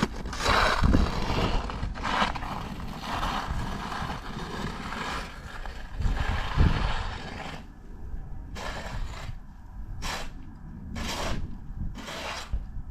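Scraping and crunching in snow, with heavy low rumble of wind buffeting the microphone for the first seven seconds or so; then four separate short crunches about a second apart.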